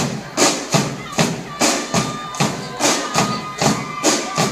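Music with a strong, steady percussion beat of sharp strikes, about two a second, and a faint held melody line underneath.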